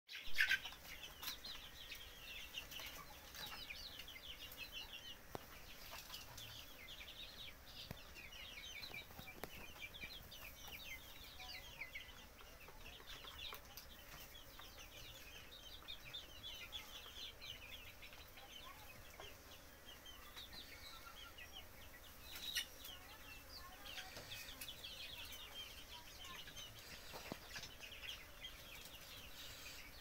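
A flock of young desi chickens peeping and cheeping continuously in short, high chirps. There is a louder call right at the start and a sharp knock about twenty-two seconds in.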